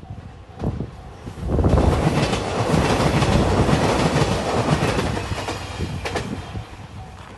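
JR Shikoku 2700 series diesel train passing over a level crossing. The rush of wheels and engine swells about a second and a half in, with regular clicks of wheels over rail joints, and fades near the end. The crossing's warning bell rings faintly before and after the train.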